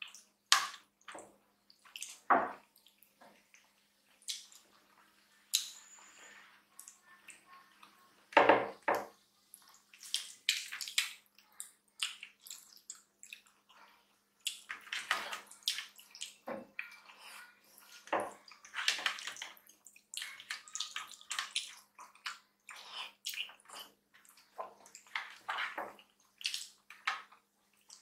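Eating by hand: wet squelches and smacks of rice mixed with dal and curry on the plates, and chewing with lip smacks, coming as irregular short sounds. A cluster of louder smacks comes about eight and a half seconds in.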